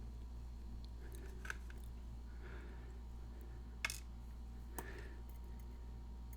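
Faint scraping and three short metallic clicks, the sharpest about four seconds in, as tools work at a Master Lock 220 padlock to take it apart. A steady low hum sits underneath.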